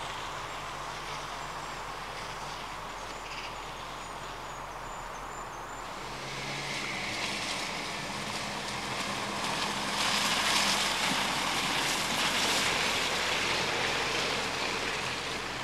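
Mini Cooper S Countryman's turbocharged four-cylinder engine and tyres as the car drives over a muddy grass track. The noise swells about six seconds in and is loudest a few seconds later as the car goes by, then eases off near the end.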